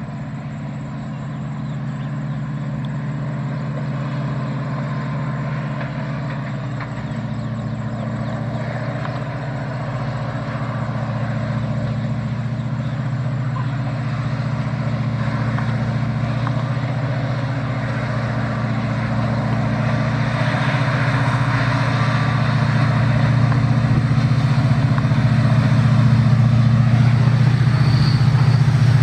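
WDM3A diesel locomotive's ALCO V16 engine working hard, a steady low drone with rail noise that grows gradually louder as the train approaches.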